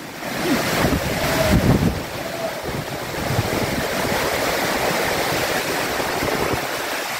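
Heavy rainstorm: strong wind and driving rain in a dense, steady rush, with wind buffeting the microphone. It swells in a gust between about one and two seconds in, then settles.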